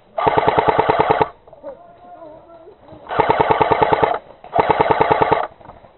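Airsoft M1919 replica heavy machine gun firing three short bursts of rapid, evenly spaced shots, each about a second long. The second and third bursts come close together.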